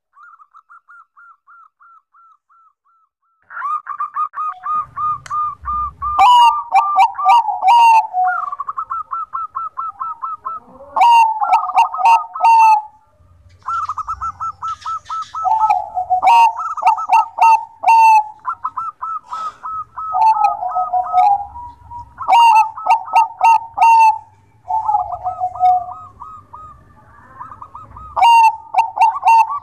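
Zebra dove (Bangkok perkutut) cooing: rapid staccato series of soft coo notes, repeated phrase after phrase, faint at first and then loud from about three and a half seconds in. Sharp clicking notes come in clusters every five or six seconds and are the loudest sounds.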